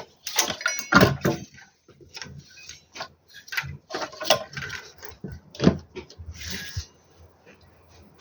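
Irregular clicks, knocks and scrapes of the inverter's casing, parts and hand tools being handled while it is closed up after repair, dying down about seven seconds in.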